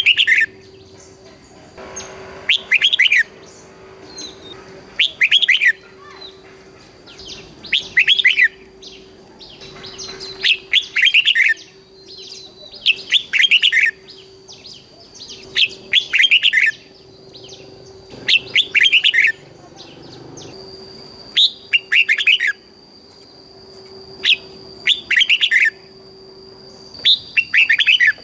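Red-whiskered bulbul singing, repeating short loud warbled phrases about every two to two and a half seconds.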